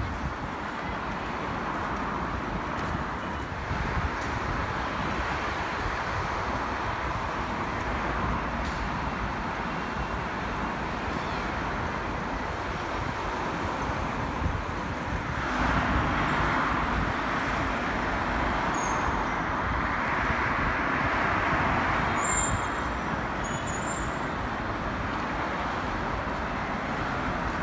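Road traffic on a multi-lane city avenue: a steady wash of cars and buses passing, swelling louder for several seconds past the middle.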